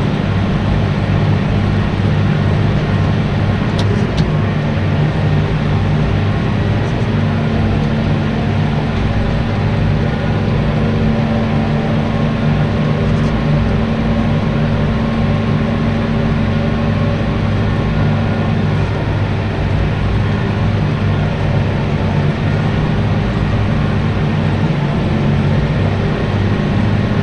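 Tractor engine running steadily under load while mowing grass, a constant drone with no change in speed.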